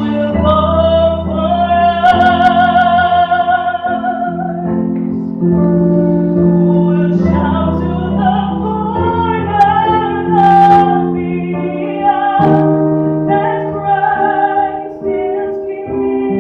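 Mixed church choir singing a gospel song in held, multi-part chords with vibrato, over instrumental accompaniment.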